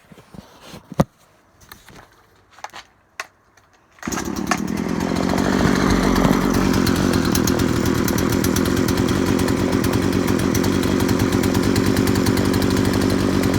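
Poulan P3416 34cc two-stroke chainsaw engine: a few sharp clicks, then it starts about four seconds in and settles into a steady idle.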